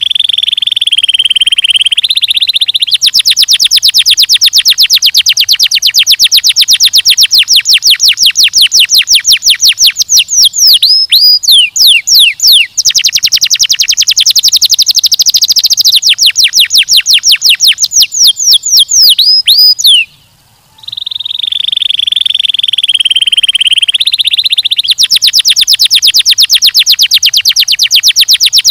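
Domestic canary singing: a long held note, then a fast, even trill broken by quick swooping whistles. After a short pause about two-thirds of the way through, the song starts again with the held note and trill.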